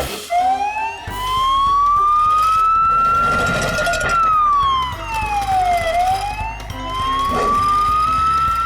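Cartoon siren wailing: a single tone that climbs slowly for about four seconds, drops back over about two, then climbs again near the end. A low rumble runs under it from about a second in.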